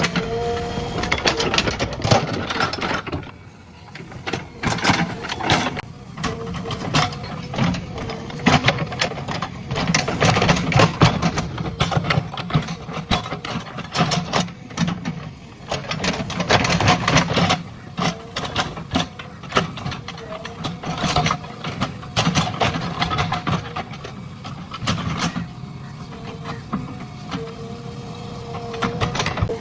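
JCB 3DX backhoe loader's diesel engine running under load, with irregular clattering and knocking throughout from the machine and its bucket working debris and earth.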